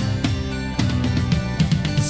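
Music with drums: a run of quick drum hits over steady held notes, thickening in the second half.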